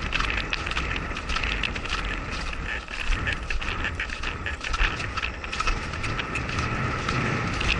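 Wind buffeting a helmet-camera microphone as a horse speeds up into a gallop, under a low steady rumble, with many irregular clicks and knocks from hoofbeats and tack.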